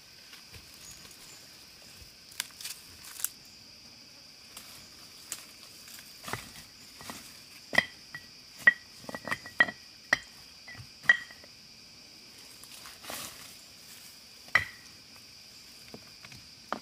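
Steady high drone of insects, with scattered sharp clicks and taps from something hard being handled, a quick run of them through the middle, some with a short ring.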